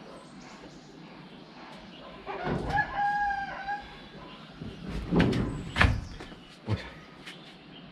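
A rooster crowing briefly about three seconds in, a short held call. Several knocks and clatters around it, the loudest about five to six seconds in.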